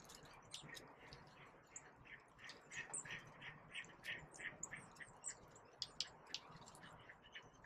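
Faint, quick chirps and chip notes of small songbirds, several a second at an uneven pace.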